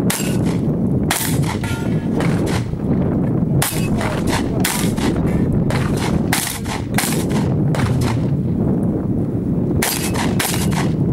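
Shotgun fired repeatedly during a practical-shooting stage: more than a dozen sharp shots at irregular spacing, some in quick pairs, with a pause of about two seconds near the end. A steady low rumble runs underneath.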